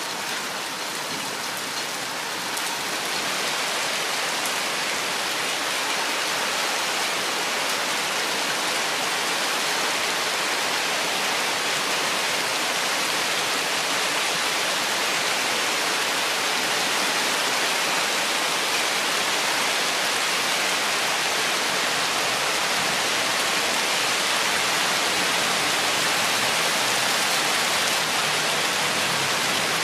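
Steady rain falling on forest foliage, an even hiss that grows a little heavier about three seconds in.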